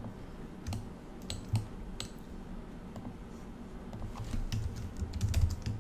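Computer keyboard typing with mouse clicks: a few scattered clicks, then a quicker run of keystrokes in the second half as a name is typed in.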